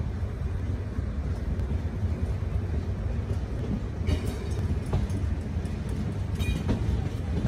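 Passenger train running on the rails: a steady low rumble with a few sharp clicks, and a brief high-pitched squeal about two-thirds of the way through.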